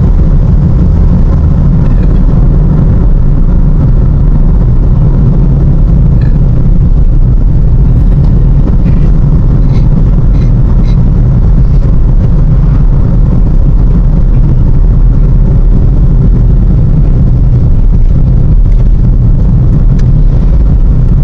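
Steady, loud low rumble of a moving road vehicle, road and wind noise, with a few faint short high ticks in the middle.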